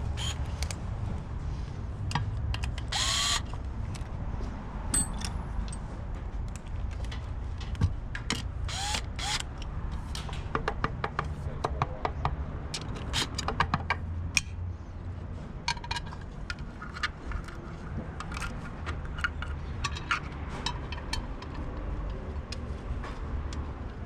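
Scattered clicks, taps and metal clinks of hand tools and engine parts being handled, over a steady low hum.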